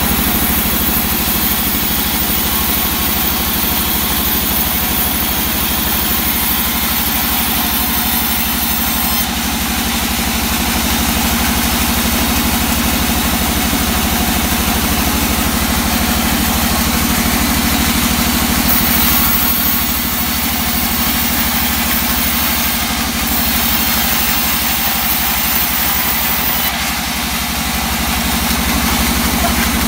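Large band saw mill running steadily while its blade rips lengthwise through a slab of old teak, giving a constant machine hum with a continuous cutting hiss.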